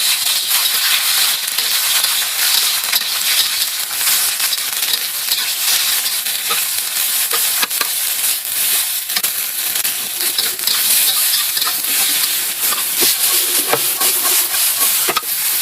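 Food frying in hot oil in a pan, with a steady loud sizzle and scattered short clicks from stirring.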